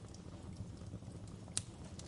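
Wood fire crackling over a steady low rumble of flames, with scattered sharp pops; the loudest pop comes about a second and a half in.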